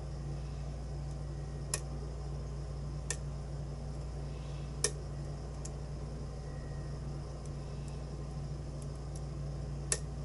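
Small, sharp metallic clicks from a lock pick and tension wrench working the pins of a pin-tumbler challenge lock, five scattered clicks, the one about halfway through the loudest, over a steady low hum.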